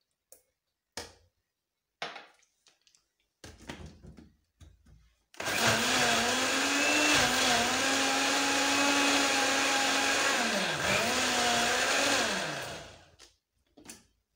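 Countertop electric blender running for about seven seconds, blending a thick banana, oat and yogurt mixture. The motor's pitch dips briefly and recovers before it winds down. A few small clicks and knocks come first, as it is set up, before the motor starts about five seconds in.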